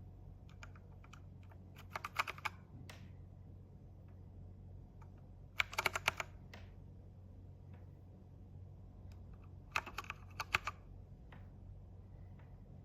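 Dierya T68SE mechanical keyboard with clicky blue switches being typed on. Three quick flurries of keystrokes come about four seconds apart, with scattered single key clicks between them, over a low steady hum.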